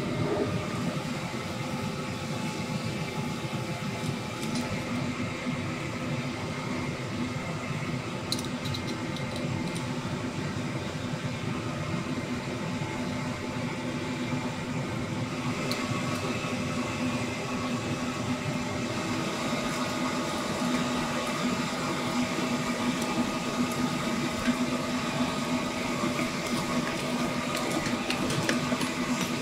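Steady mechanical hum over a constant background din, with a couple of faint clicks about a third and halfway through.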